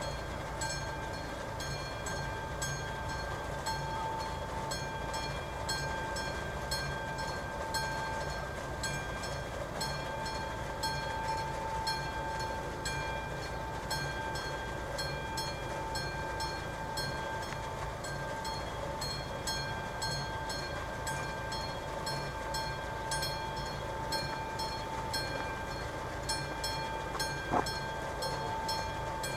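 Level-crossing warning bell of an AŽD 71 signal, a classic mechanical bell, ringing on with rapid, even strokes to warn that the crossing is closed for an approaching train. A brief click sounds near the end.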